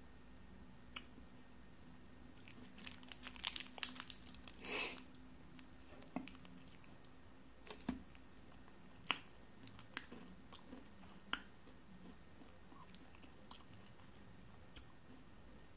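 Foil wrapper of a chocolate bar crinkling as it is peeled back, in a burst of crackles a few seconds in, then a few sharp single crunches and clicks as a piece is bitten off and chewed.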